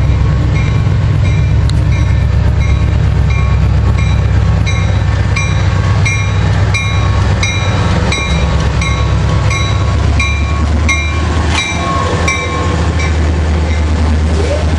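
Norfolk Southern diesel freight locomotives approaching and passing close, a steady heavy engine rumble with wheels on the rails, while a bell rings about two and a half times a second.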